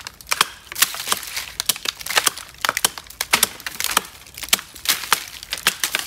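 Hatchet chopping into a standing tree trunk: a steady run of sharp blows, about two a second, cutting through the bark into the wood.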